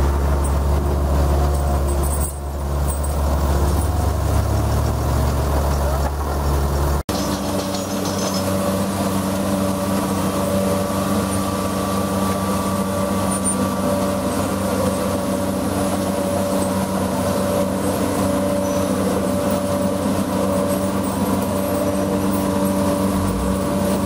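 Tracked vibratory cable plow running with a steady mechanical drone while it pulls a duct into the ground. About seven seconds in, the sound changes abruptly from a deep hum to a steady, higher-pitched hum.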